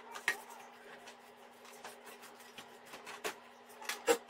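Paintbrush bristles sweeping dust off a switched-mode power supply's sheet-metal casing: a run of short scratchy strokes, with a few louder clicks of the metal about a third of a second in, around three seconds in and just after four seconds.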